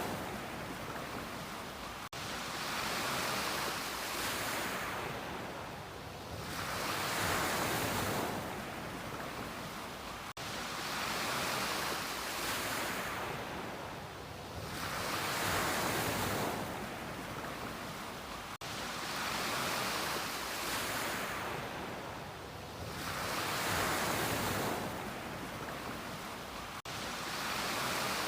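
Ocean waves washing onto a beach, a steady rush of surf that swells and fades about every four seconds.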